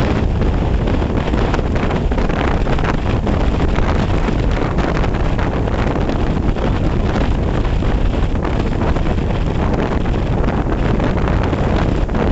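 Storm-force mountain wind buffeting the camera's microphone: a steady, loud rush of noise, heaviest in the low rumble, with constant rapid flutter from the gusts.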